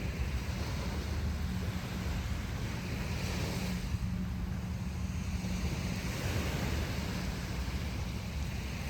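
Ocean surf washing onto a beach, a steady rushing with gentle swells as waves break, over a low rumble of wind on the microphone.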